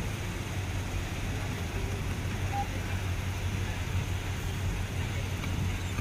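Steady outdoor rush of waterfalls mixed with wind on the microphone, heaviest in a low rumble.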